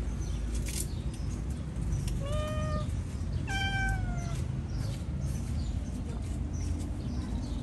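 Domestic cat meowing twice, short calls about a second apart, the second one sliding down in pitch, over a steady low background rumble.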